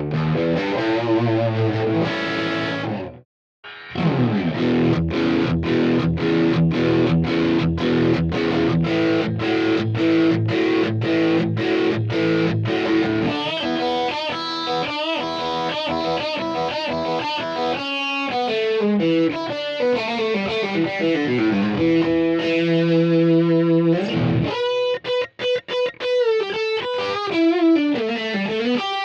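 Sterling JP70D electric guitar played with distortion through a Line 6 POD HD500 multi-effects unit: lead lines with a short full stop about 3 s in, a stretch of evenly spaced short staccato notes about two a second, then faster runs and held notes.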